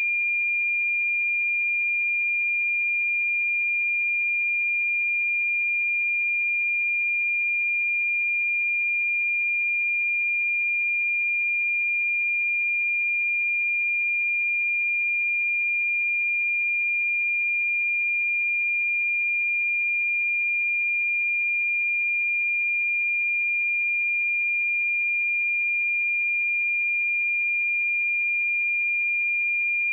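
Steady 2405 Hz sine test tone, one pure high-pitched pitch held unchanged at constant level.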